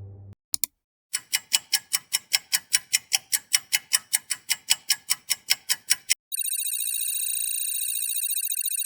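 Sound-effect bell rings: first a fast series of sharp, high ringing strikes, about five a second for some five seconds, then a continuous trilling ring like an old telephone's electric bell.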